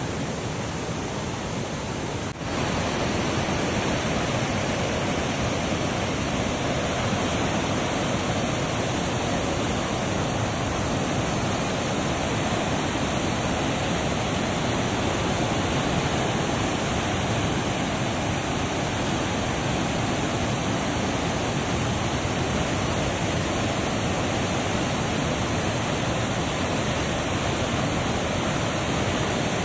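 Steady rush of water falling through a dam spillway gate and churning in the river below. It breaks off briefly about two seconds in and comes back slightly louder.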